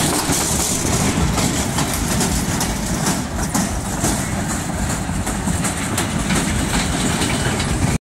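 Steady engine-like running of a spinning caterpillar fairground ride's machinery as the ride turns.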